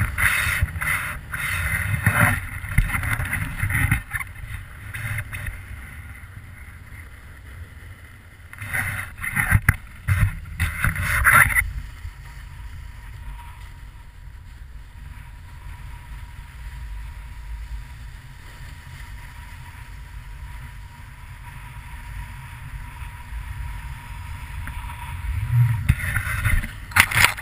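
Snowboard sliding and turning on a snowy piste, with wind rushing over the action camera's microphone; the rush grows louder and rougher in the first few seconds, around ten seconds in, and again at the end.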